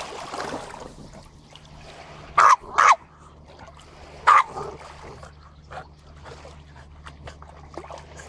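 Norwich terrier barking three short times: two barks in quick succession, then a third about a second and a half later.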